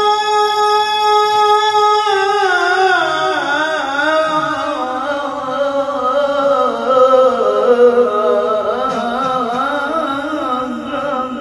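Melodic Quran recitation (tilawah) by a solo reciter: one long high note held for about two seconds, then a slide down into wavering, ornamented runs.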